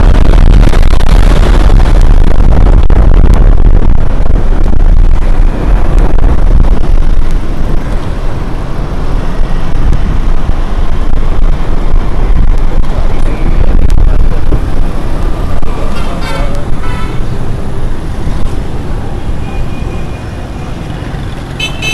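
Loud wind rush and road noise from riding through city traffic, with motorcycles and cars close by. A vehicle horn honks briefly about three quarters of the way through, and the rush eases a little in the second half.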